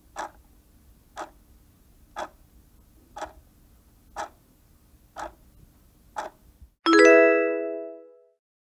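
Quiz countdown-timer sound effect: a clock ticks seven times, once a second, then a bright bell-like chime rings out and fades over about a second and a half, marking the reveal of the correct answer.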